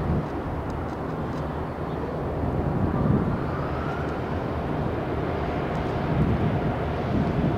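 Steady jet engine rumble from an airliner moving down the runway, heard outdoors with some wind noise on the microphone.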